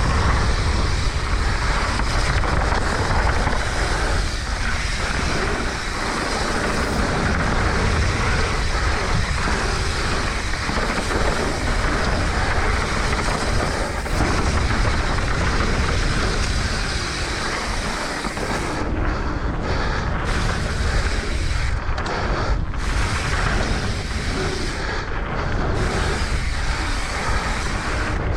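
Wind buffeting the action-camera microphone over the rumble of mountain bike tyres rolling down a dirt trail, a steady loud noise, with the hiss dropping briefly a few times near the end.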